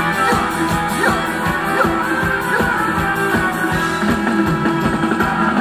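Live band playing a Thai ramwong dance song, with a steady, quick drum beat under pitched instruments.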